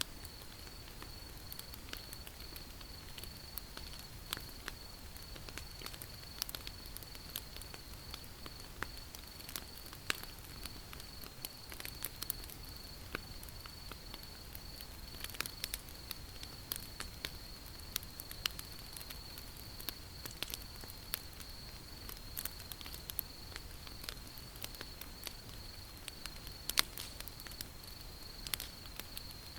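Wood fire crackling: irregular sharp snaps and pops over a low rumble, with one louder pop near the end. A steady high-pitched tone sits beneath it.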